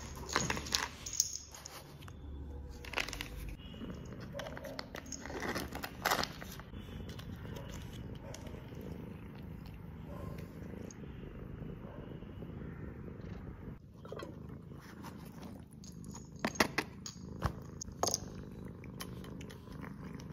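A domestic cat purring steadily, with crinkling and clicking of a foil wet-food pouch being squeezed near the start and a few more sharp clicks scattered later.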